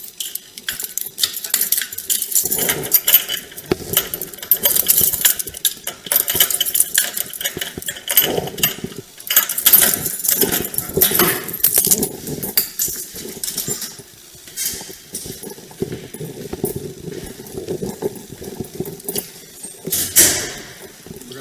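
Irregular metallic jingling and clinking, like keys or equipment, mixed with rustling and handling knocks close to the microphone.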